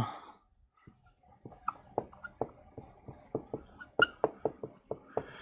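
Dry-erase marker squeaking on a whiteboard while words are written: short, quick strokes, about four or five a second, starting about a second and a half in. One sharper click comes about four seconds in.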